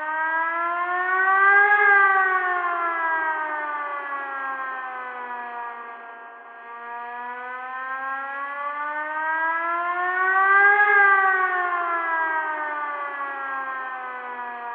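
Tornado warning siren wailing: a long rising-and-falling tone that peaks twice, about nine seconds apart, growing louder as it climbs and softer as it falls. It begins to fade near the end.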